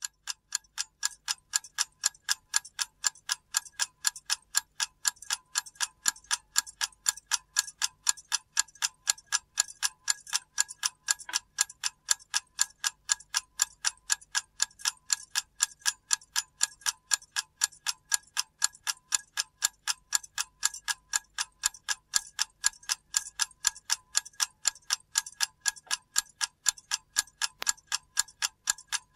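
Mechanical clock ticking in an even, quick rhythm of about two to three ticks a second.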